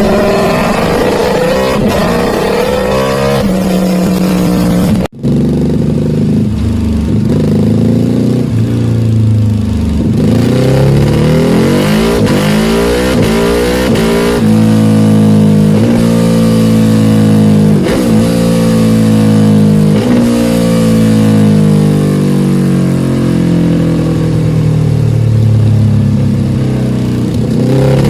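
Ducati Panigale R engine through an Akrapovic full titanium exhaust, running hard on a dyno. Its note climbs in pitch again and again, with a brief sharp cut about five seconds in.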